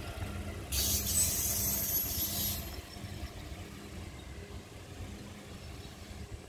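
ED4M electric multiple unit pulling away slowly with a low, steady rumble and hum. Just under a second in, a loud hiss of released air starts sharply and cuts off about two seconds later.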